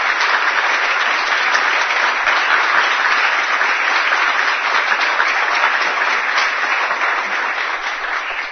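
Concert audience applauding: dense, steady clapping from a large crowd that begins to die down near the end.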